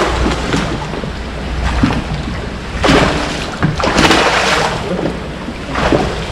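Wind buffeting the microphone over water around a small fishing boat, a steady rumbling rush with louder gusts or splashes about three and four seconds in.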